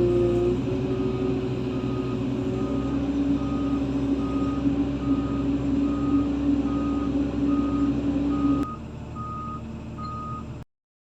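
Heavy vehicle's reversing alarm beeping steadily, about one and a half beeps a second, over a running diesel engine. Near the end the engine sound drops abruptly, the beeping goes on, and then all sound cuts off.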